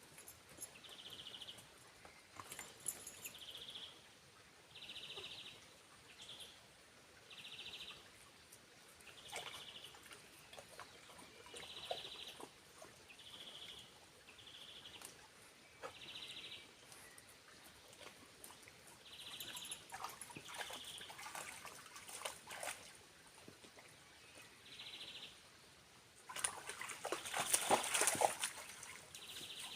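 Short, high trilling calls from a small animal, repeated every second or two, over a faint hiss of water. There are scattered clicks, and a loud noisy crackle lasts about three seconds near the end.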